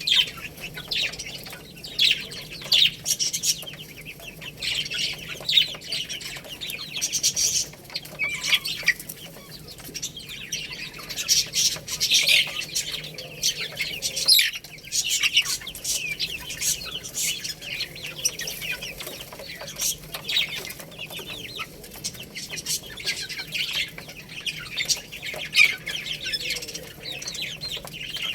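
A group of baby chicks peeping: many short, high-pitched calls overlapping without pause.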